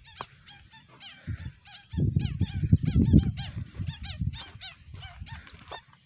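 Many overlapping honking calls of night herons (kuak), several a second. A loud low rumble of handling noise on the microphone from about two to three and a half seconds in.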